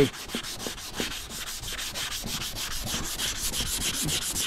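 Fibreglass bumper being hand-sanded with fine 320-grit sandpaper, a quick, even rhythm of short back-and-forth rasping strokes. This is the refining stage that takes out coarser 80- and 180-grit scratches before primer.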